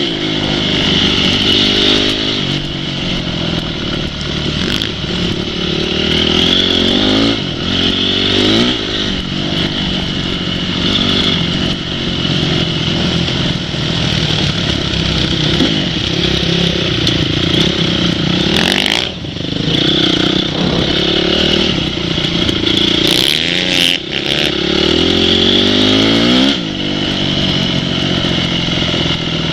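Off-road motorcycle engine running hard, its pitch rising and falling again and again as the throttle is opened and closed, with a brief dip about two-thirds of the way through.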